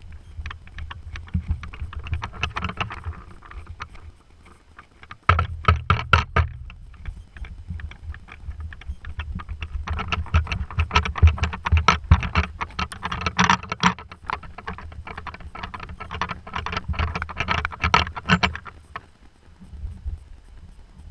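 Sea water slapping and splashing against a small floating platform, heard from on board. The splashes come quick and irregular over a low rumble, and are briefly quieter about four seconds in.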